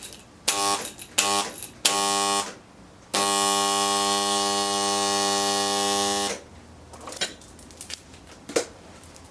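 Bare rotary air-conditioner compressor motor stator, run on mains with no rotor in it, buzzing loudly with a handful of steel roofing screws inside its bore. It is switched on in three short bursts and then for about three seconds before cutting off, after which a few light metallic clinks are heard.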